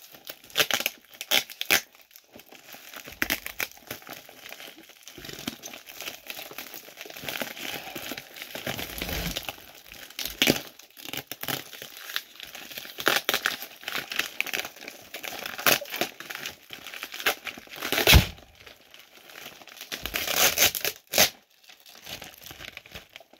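Clear plastic wrap and gift wrapping paper crinkling and tearing as a taped-up package is pulled open by hand, in irregular rustles and rips; the loudest is a sharp rip about 18 seconds in.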